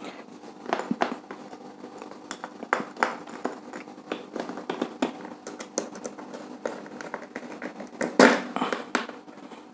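Irregular small clicks, taps and scrapes of hands working a wire into the brass screw terminal of a plastic two-way switch, with a louder scrape about eight seconds in.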